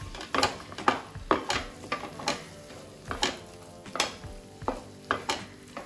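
Wooden spatula stirring a thick onion-tomato and spice-powder masala in a stainless steel pan, with irregular scrapes and knocks against the pan about twice a second over a light sizzle.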